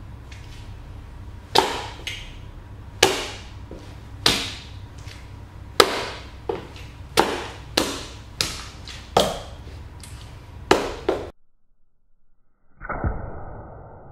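Cowboy boots stomping and crushing grapes on a tile floor: a dozen or so sharp, uneven heel and sole strikes. After a short silence near the end comes one duller, muffled thud.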